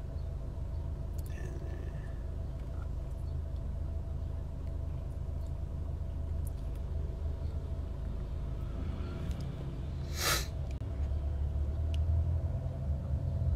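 Steady low rumble of a car driving, heard from inside the cabin, with one short hiss about ten seconds in.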